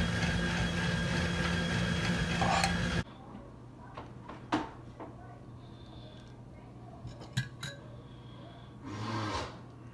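A spoon scraping and clinking in a non-stick frying pan while scooping out masala filling, over a steady hiss and hum. About three seconds in, the sound drops sharply to a quieter background with a few short clicks and knocks.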